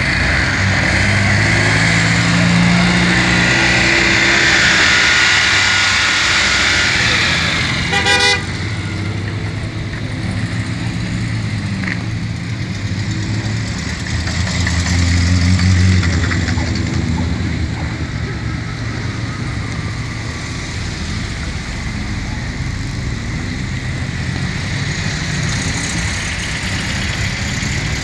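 Classic cars, among them Morris Minor Travellers and an MGB roadster, driving slowly past one after another with their engines running. A short horn toot sounds about eight seconds in, and one car's engine passes close and loud around the middle.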